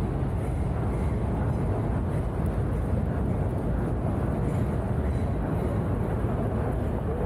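Outdoor city ambience: a steady low rumble, like distant traffic and wind.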